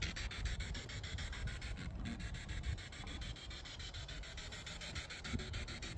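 Spirit box sweeping rapidly through radio stations at a fast sweep rate. It gives a steady hiss of static chopped into about six or seven clicks a second.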